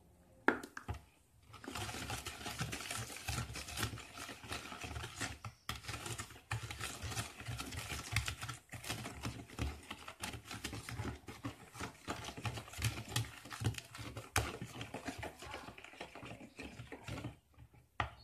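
Wire whisk beating eggs in a plastic bowl: a fast, even clatter of the wires against the bowl that starts about two seconds in and stops about a second before the end.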